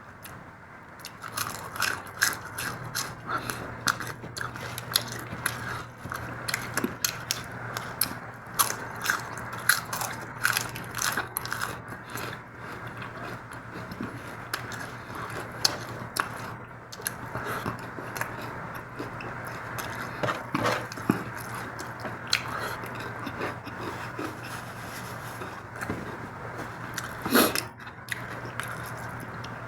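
Close-miked eating of mutton curry, mutton fat and rice: irregular wet chewing and lip-smacking clicks, with a louder smack near the end, over a steady low hum.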